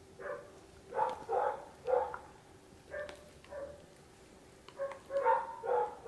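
A dog barking: about nine short barks in irregular clusters, with a faint steady hum underneath.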